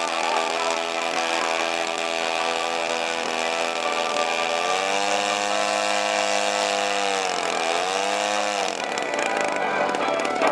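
Engine of a giant-scale RC Stuka model airplane running on the ground while the plane is held by its tail. Its note is steady at first, shifts about halfway through, wavers up and down, then changes again near the end as the throttle is worked.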